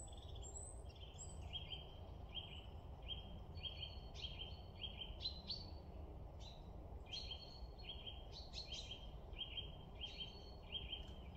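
Small songbirds calling, a steady run of short high chirps, several a second and overlapping at a few pitches, over a faint low background rumble.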